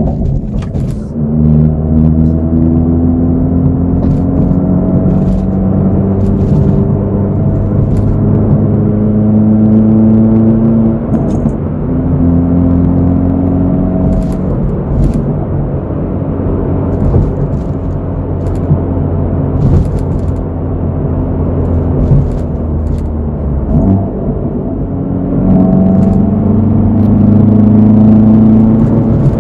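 Hyundai Veloster N's turbocharged 2.0-litre four-cylinder engine and exhaust heard from inside the cabin while driving. The note climbs in pitch several times as the car accelerates and then settles back.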